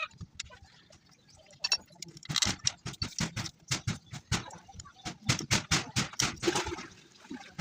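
A quick, irregular run of sharp knocks and clicks, several a second, from about two seconds in until near the end: tools and metal alternator parts being tapped and handled during the repair.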